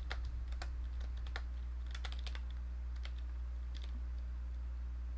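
Computer keyboard typing: irregular key clicks, over a steady low hum.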